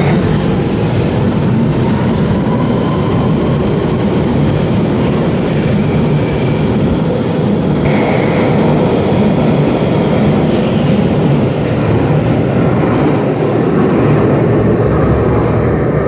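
London Underground tube train running along the platform: a loud, steady rumble of wheels and motors, with a faint rising whine early on.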